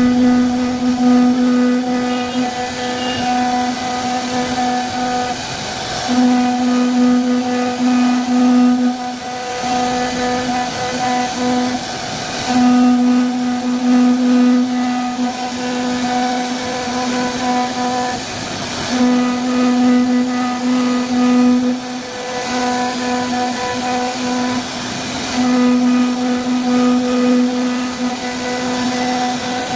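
CNC router spindle whining at one steady pitch as its bit cuts grooves into an MDF board, with a rushing cutting noise beneath. The whine grows louder and softer every few seconds.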